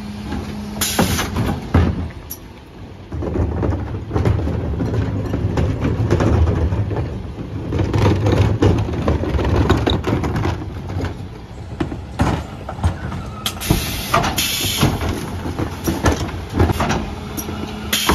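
Mercedes Econic refuse truck at work: its engine runs under load, with a heavy rumble that builds about three seconds in, and knocks and clatter throughout. Short bursts of air hiss come near the start, again late on, and at the very end.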